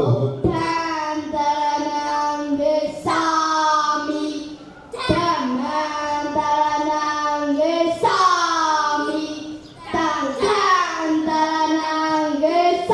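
A young novice monk's high child voice chanting Buddhist devotional verses in long, held melodic phrases with gliding pitch, broken by short pauses for breath.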